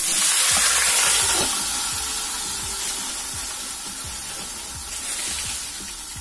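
Washed bottle gourd and potato pieces tipped into hot oil in a karahi, sizzling loudly at first, then fading to a quieter, steady sizzle.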